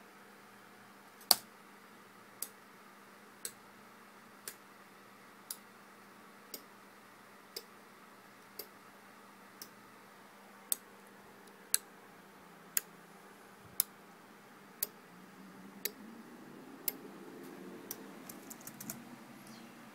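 Relays on a Raspberry Pi GPIO-controlled relay card clicking as they switch under a test script: a steady run of about seventeen sharp clicks, one a second, the first the loudest. Near the end a low rustle of handling comes in, with a few quicker clicks.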